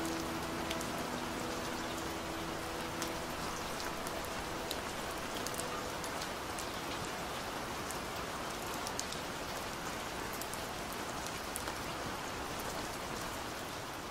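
Steady rain falling, with the sharp ticks of single drops striking a surface scattered through it.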